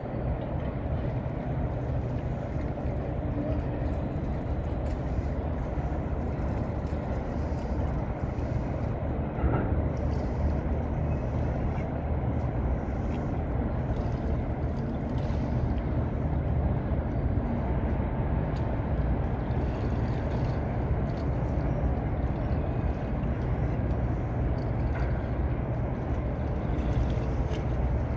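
Boat's engine running steadily, a low drone under an even rush of noise, with a brief bump about nine and a half seconds in.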